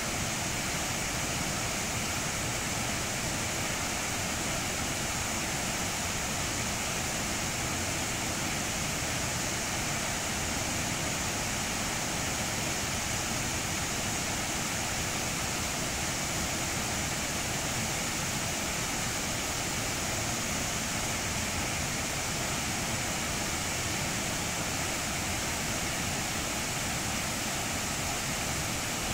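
Stream water rushing over boulders through a small waterfall and rapids, a steady, even rush.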